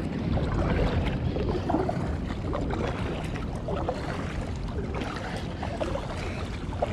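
Kayak paddle strokes dipping and splashing lightly in the water, under a steady low rumble of wind on the microphone.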